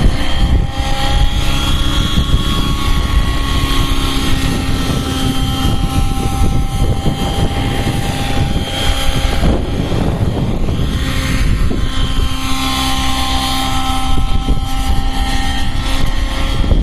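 Nitro-powered Align T-Rex 700 RC helicopter in flight: the glow engine runs at a steady high-pitched whine over the rotor blades' chop, its pitch shifting slightly now and then.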